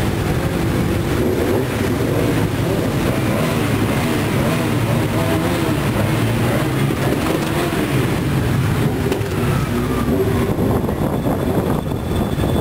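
Several motorcycle engines running at low revs as the bikes roll slowly close by, a steady loud rumble with slight rises and falls in pitch.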